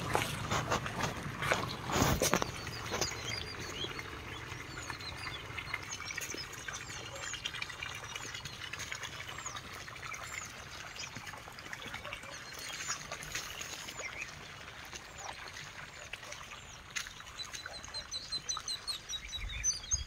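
Small birds chirping over a farm field: many short, high-pitched, falling calls scattered throughout, with a quick run of chirps near the end. Rustling knocks in the first few seconds.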